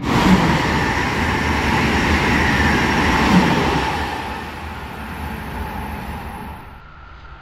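Amtrak Acela Express trainset passing at speed: a loud, steady rush of wheels on rail and air, with a faint whine. It is loudest in the first four seconds, then fades and cuts off shortly before the end.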